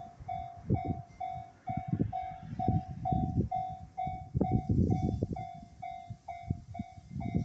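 Japanese level-crossing warning bell ringing in an even, repeating pattern about two and a half times a second, while a freight train rolls slowly over the crossing, its wagon wheels thumping irregularly over the rail joints.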